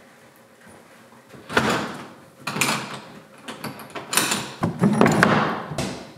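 A door swinging shut, then a metal barrel bolt sliding home with sharp clicks, and a wooden bar set across the door: a series of separate knocks and clacks.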